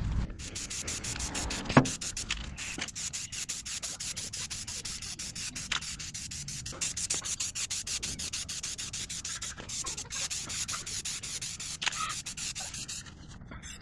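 Aerosol primer spray can hissing as primer is sprayed onto sheet steel, the hiss broken up again and again. A single sharp knock about two seconds in.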